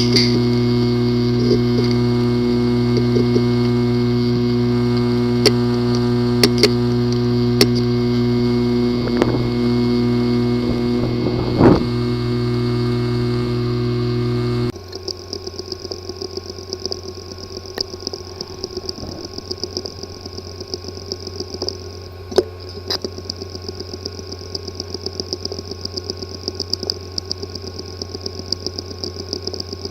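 Hard disk drive with a physically damaged disk assembly, running with a steady buzzing hum and a few sharp clicks. About halfway through, the sound drops abruptly to a quieter running noise with a fast, light ticking.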